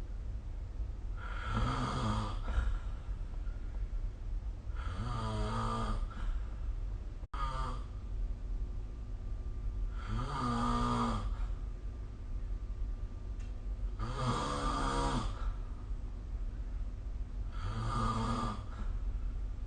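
A sleeping person snoring, recorded on a phone app: five snores about four seconds apart, each lasting about a second, over a steady low background hum.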